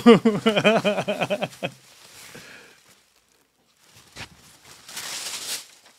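A man laughing in a quick run of short "ha" sounds for under two seconds. Near the end there is a single light click and then a brief rustle of a thin running jacket's fabric being handled.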